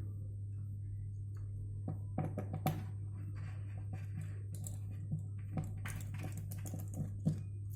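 Scattered clicks, taps and light knocks of hands handling the parts and wiring inside an opened large speaker cabinet, starting about two seconds in, over a steady low hum.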